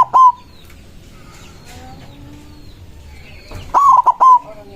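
Zebra dove (perkutut) cooing. The tail of one song phrase comes right at the start, and a full phrase of three or four quick, clipped coos follows about four seconds in. Faint chirps and clucks from other birds fill the gap.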